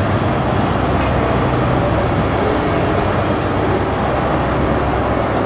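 ScotRail High Speed Train (Class 43 diesel power car) running as it moves slowly along the platform: a steady low diesel hum under loud, even rumble and rail noise.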